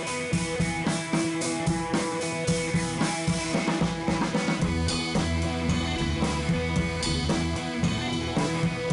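Background music with a steady drum beat and guitar; a deeper bass line comes in about halfway through.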